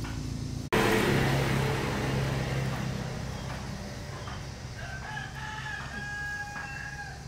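A rooster crowing once, a call of about two seconds near the end, over a steady low running noise that starts abruptly just under a second in and slowly fades.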